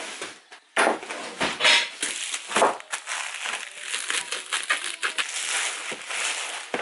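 Plastic poly mailer bag crinkling and rustling in irregular scrunches as it is handled and a boxed item is slid out of it, starting about a second in.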